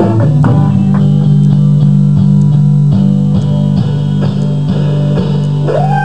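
Live band rehearsal music: an acoustic guitar strums a steady rhythm over a low chord held throughout.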